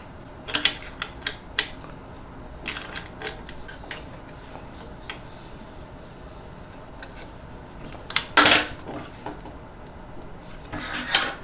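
Small steel wrench clicking and scraping against the eccentric nut and metal frame under a 3D printer's bed as the nut is turned to take the play out of a loose, wobbly bed. Clusters of sharp clicks over the first few seconds, a few scattered clicks after, then a louder scrape about eight seconds in.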